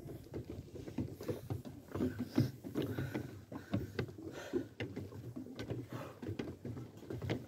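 A person out of breath, panting hard while climbing steep wooden stairs, with irregular soft footfalls and jacket rustle.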